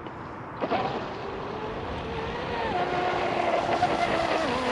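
36-inch RC catamaran running on the water, its brushless motor on 8S giving a whine that comes in sharply about half a second in and steps up in pitch near three seconds, slowly getting louder.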